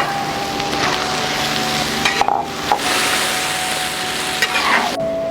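Food sizzling in a wok while it is stirred with a spatula, with a few sharp clinks of the utensil against the pan.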